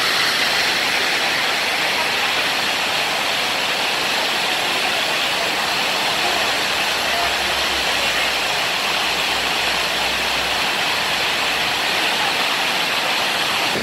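Steady rushing of water cascading down Dunn's River Falls, an even loud hiss without a break.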